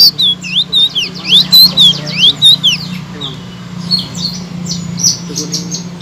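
Caged selendang biru songbird singing loudly: a quick run of clear whistled notes that swoop up and down, with short chattering clicks between the phrases.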